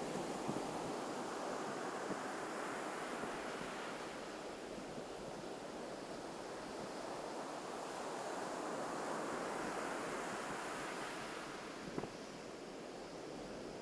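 Ocean surf washing onto a beach, a steady rush that swells and eases slowly over several seconds, with some wind on the microphone. A brief click near the end.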